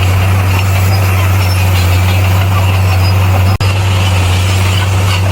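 Bulldozer's diesel engine running steadily with a deep drone. The sound cuts out for an instant about three and a half seconds in.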